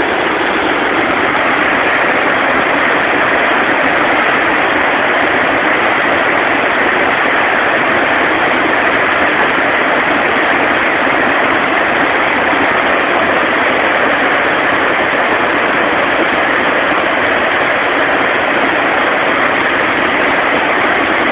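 Water rushing over a river weir: a loud, steady, even rush.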